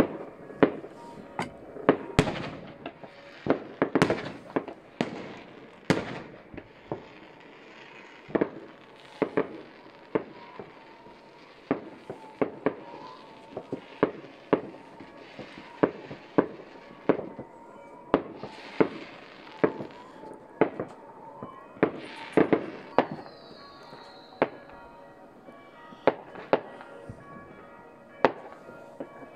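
New Year's Eve fireworks and firecrackers going off across a town: dozens of sharp bangs at irregular intervals, with crackling between them. A brief falling whistle comes about two-thirds of the way through.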